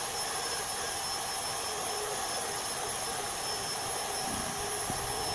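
Cordless drill running at a steady speed with an even whine, its bit boring into the plastic tank of a pump sprayer.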